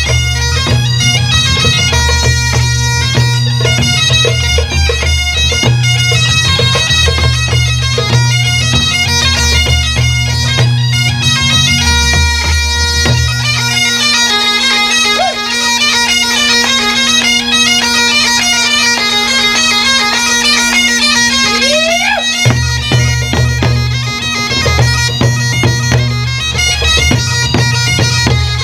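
Bagpipe band playing a tune, pipes over a steady drone, with a low rhythmic accompaniment underneath. The low accompaniment drops out for about nine seconds midway, leaving pipes and drone alone, then comes back.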